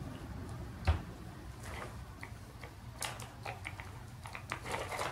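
Small plastic toy figures clicking against each other and a plastic tray as they are picked through by hand, the clicks thickest from about three seconds on. A single dull knock about a second in.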